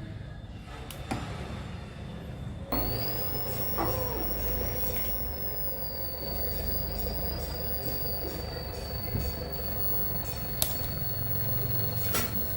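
A Samsung 21-inch CRT television switching on: a click, then a low hum and a steady high-pitched whine that sags slightly in pitch and holds, with a few sharp clicks later on.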